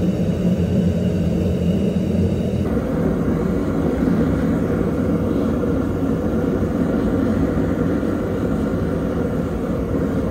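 Gas forge burner running with a steady, low rushing roar. Its tone shifts slightly a little under three seconds in.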